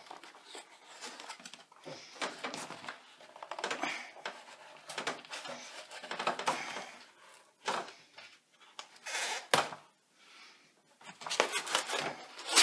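Cardboard box being worked open by hand: irregular scraping, rubbing and rustling of the flaps and tucked lid, broken by small taps and a sharper knock about nine and a half seconds in.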